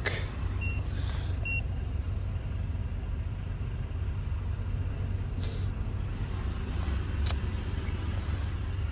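A Ford 6.2 L gas V8 idling with a steady low rumble, heard from inside the truck's cab. Two short high beeps sound in the first two seconds, and a single click comes near the end.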